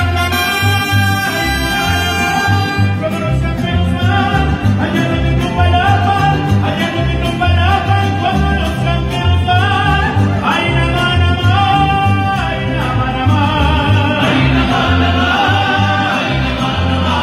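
Mariachi ensemble playing live, with trumpets, violins, harp and guitars over a moving bass line, and male voices singing.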